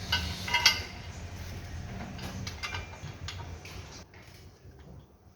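Metal tools or parts clinking against each other: a few ringing clinks in the first second, then scattered fainter ones, over a low rumble that fades away.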